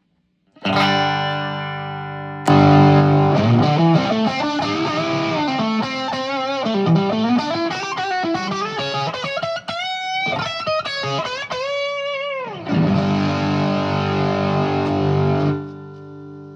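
Electric guitar played through a two-transistor germanium boost pedal with NKT270 transistors, giving a slightly driven tone. A chord rings out, a second chord is struck, then a single-note lead with string bends and vibrato, ending on a chord that rings and fades.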